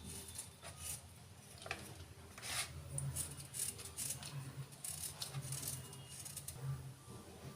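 A knife cutting a block of jaggery into fine pieces: irregular sharp cuts and scrapes, about one or two a second.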